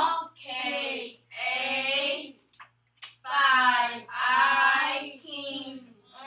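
A small group of children chanting in unison in a drawn-out, sing-song way, reciting letter-card responses in short phrases of about a second with brief pauses.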